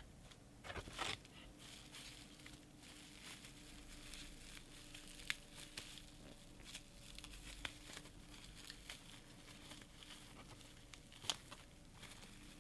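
Faint rustling and crinkling of packaging being handled while parts are unpacked, with scattered light clicks and taps. There is a louder rustle about a second in.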